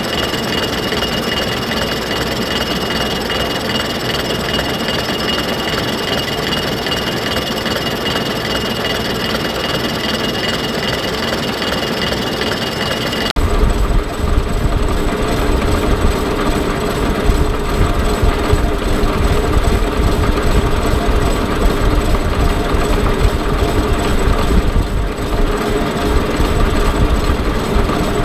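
Defiance horizontal boring mill running a 5-inch face mill through a cut, a steady machining noise with a constant high whine. About 13 seconds in the sound changes abruptly: the whine drops out and a deeper, rumbling running noise takes over.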